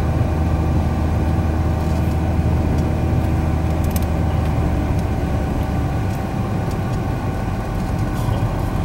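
Steady engine and tyre noise heard inside the cabin of a moving car, with a couple of faint clicks about two and four seconds in.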